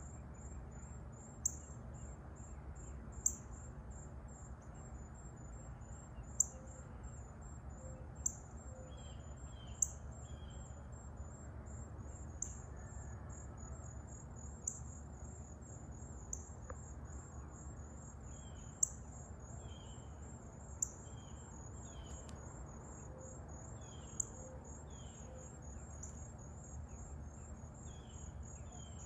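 A steady, high, finely pulsing insect trill, with sharp bird chip notes ringing out about every two seconds. Soft short chirps come in little runs through the second half.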